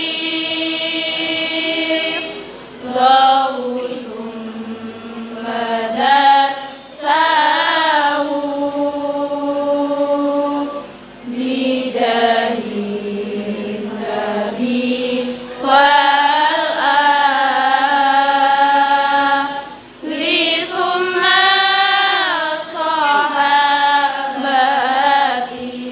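Schoolgirls' voices chanting an Arabic devotional verse together in a slow melody of long, wavering held notes. The phrases last a few seconds each, with short breaks between them.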